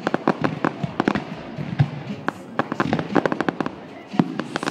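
Aerial fireworks crackling and popping: a rapid, irregular string of sharp cracks from bursting shells, with louder bangs near the end.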